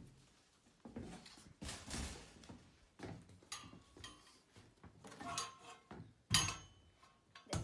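Cage parts and packing being handled: a run of irregular rustles, scrapes and light knocks, the loudest a sharp clatter about six and a half seconds in.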